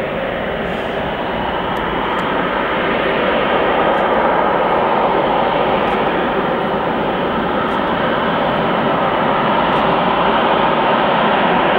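Airbus A330-343 jet engines (Rolls-Royce Trent 700 turbofans) running at taxi power: a steady rushing jet noise that grows slowly louder as the airliner taxis closer.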